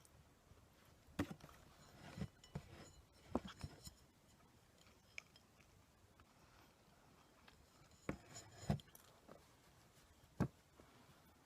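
A few scattered short clicks and soft knocks in a quiet room, in two small clusters: light handling noises of things being picked up or set down.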